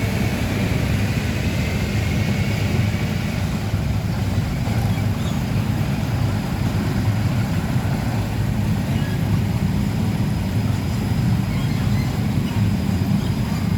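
Heavy diesel truck traffic on a road: a steady low engine rumble that holds level throughout.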